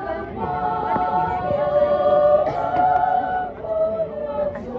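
Mixed choir singing a song in harmony, several voices holding long sustained notes that move to new chords partway through.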